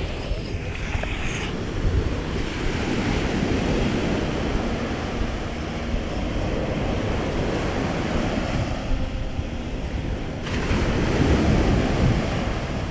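Small ocean waves breaking and washing up a sandy beach, with wind buffeting the microphone.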